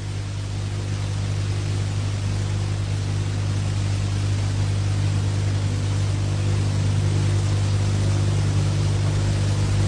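Train engine running with a steady low drone and hiss, growing gradually louder.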